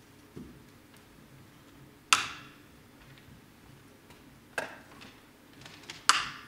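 Three sharp clicks, each with a brief ringing tail: one about two seconds in, a softer one about two and a half seconds later, and a loud one near the end.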